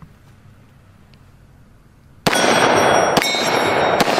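Three shots from a Glock 20 Gen 5 10mm pistol, a little under a second apart, starting about two seconds in. Each shot is followed by the ringing of struck steel targets, which carries on between the shots.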